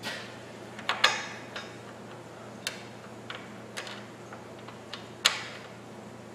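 Scattered, irregular small metallic clicks and ticks as bolts are started by hand into a steel rock slider under the vehicle, the loudest about five seconds in, over a steady low hum.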